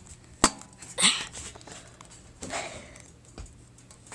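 Handling noise from a handheld camcorder being swung about: a sharp click about half a second in, then brief rustling bursts and a faint click near the end.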